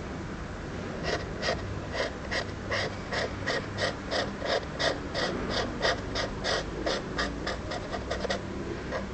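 Quick, rhythmic huffs of breath from a person, about three a second, starting about a second in.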